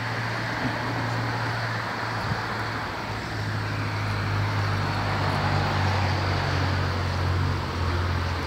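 Road traffic with a steady low engine hum; about three seconds in the hum drops slightly in pitch and grows louder for several seconds, as a vehicle close by runs or passes.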